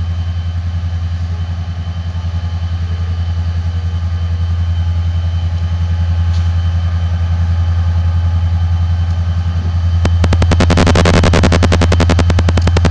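Diesel engine of CSX locomotive 4402 running with a steady low, pulsing throb as the train moves off slowly. About ten seconds in it grows louder and harsher, with a fast rattling pulse.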